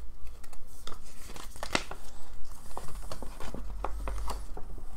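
Folded paper poster being unfolded by hand: a run of crinkling and rustling paper, with a sharper crackle a little under two seconds in.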